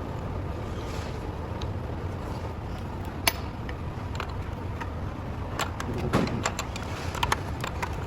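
Scattered sharp metallic clicks and clinks of tools and small parts being handled over a steady low hum. The clicks come thicker in the second half, with one louder click about three seconds in.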